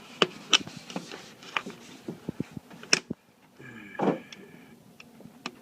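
Irregular metallic clicks and clinks of a socket and wrench being worked on an intake manifold bolt, with a louder, brief scraping sound about four seconds in.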